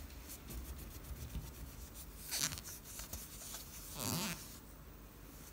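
Cloth rubbing over a sterling silver spoon as it is polished with paste: a quick run of faint, scratchy strokes, with two louder swishes about two and a half and four seconds in.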